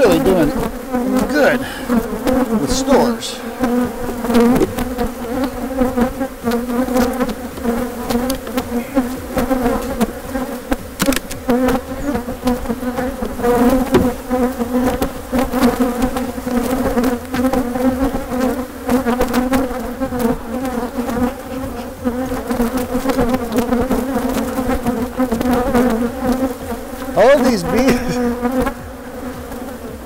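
Honeybees buzzing loudly and steadily around an opened hive: a dense, droning hum of many bees flying close to the microphone, from a colony disturbed by having its frames moved. A few light knocks sound here and there as the wooden hive frames are handled.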